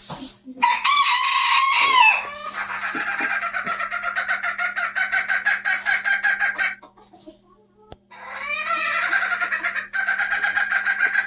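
Japanese bantam hen calling: a loud drawn-out note, then a long, rapid stuttering run of notes lasting several seconds. After a break of about two seconds she starts a second stuttering run.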